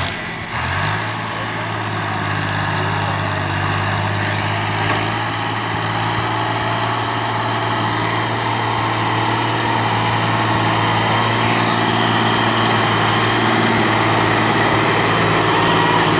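Old Fiat 480 tractor's three-cylinder diesel engine running steadily under load as it pulls a heavily loaded sugarcane trolley, growing gradually louder.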